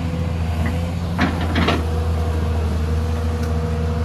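Hyundai crawler excavator running steadily with a deep engine hum while working its bucket against a dirt bank. A thin steady whine joins about a second in, and a few short knocks sound about a second and a half in.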